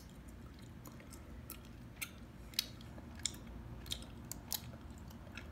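Gum chewing close to the microphone: sharp, wet clicks and snaps coming irregularly, roughly every half second to a second.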